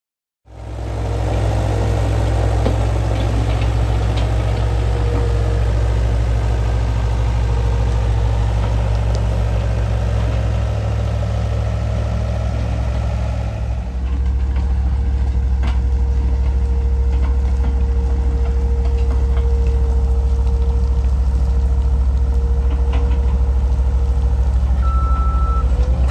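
Diesel engine of a CAT 236B skid steer running steadily, with a slight shift in its note about halfway through, after which a steady whine runs alongside it. Two short high beeps sound near the end.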